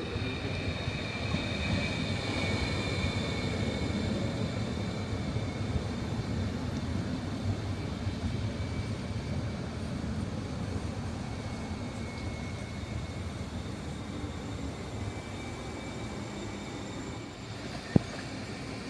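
Stadler FLIRT ETR 350 electric multiple unit pulling into the station and slowing, a steady rumble of wheels and motors with a high whine that falls in pitch as it brakes. A sharp click near the end.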